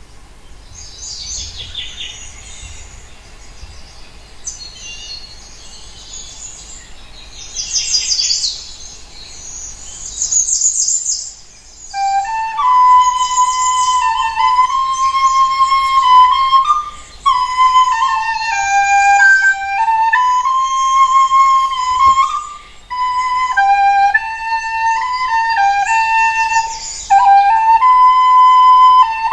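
High, bird-like chirping and twittering for the first ten seconds or so. Then, about twelve seconds in, a recorder starts playing a slow melody in short phrases with brief pauses between them.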